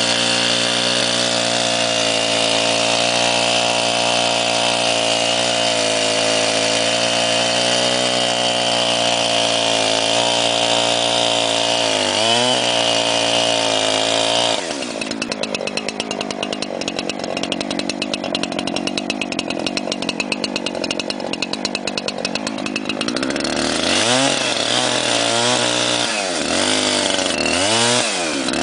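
Husqvarna 372XP 70.7 cc two-stroke chainsaw engine running steadily at high revs, then dropping suddenly to a low idle about halfway through. Near the end the throttle is blipped several times, the revs rising and falling quickly.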